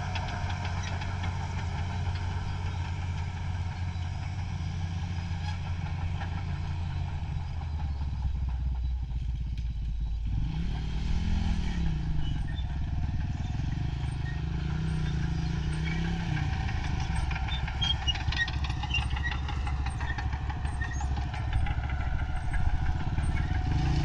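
Engine of road-building machinery running steadily, its revs rising and falling a few times about halfway through and again near the end.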